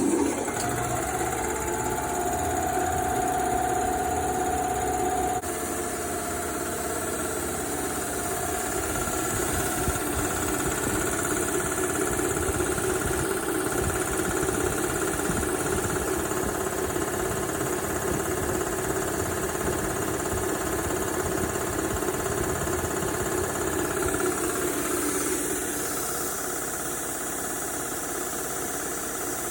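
A 7.5 horsepower reciprocating piston air compressor running under load as it pumps up its tank. The machine noise sets in sharply at the start, a steady whine rides over it for about the first five seconds, and the sound eases slightly about 25 seconds in.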